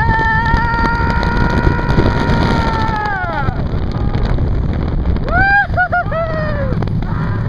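Roller coaster riders screaming: one long high scream held for about three seconds, then falling away, and a second wavering scream about five seconds in. Both sound over the steady rumble of the coaster train on the track and wind on the microphone.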